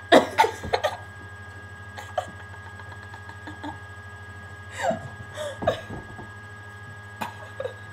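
Women's short bursts of giggling and gasping, loudest right at the start, with more bursts about five seconds in and near the end, over a steady low electrical hum.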